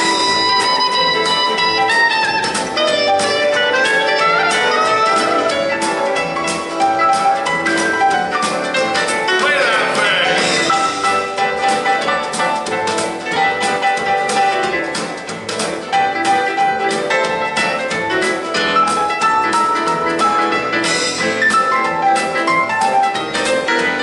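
Instrumental music with a steady beat.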